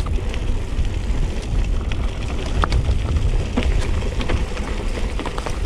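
Mountain bike riding over a rough forest trail: a steady low rumble of wind on the microphone with scattered clicks and rattles from the bike over the ground.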